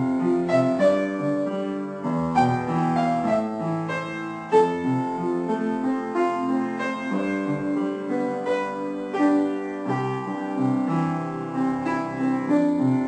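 Background piano music: a steady flow of piano notes.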